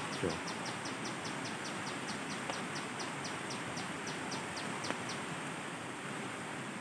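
River rapids rushing steadily over rocks, with a fast run of short, high, downward chirps, about four a second, that stops about five seconds in.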